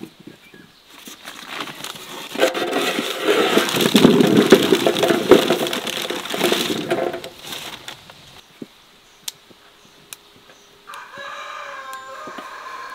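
Several seconds of rustling and clattering as handfuls of cherry plums are stirred and moved in a metal tub, then a few separate clicks. Near the end a rooster crows once for about two seconds.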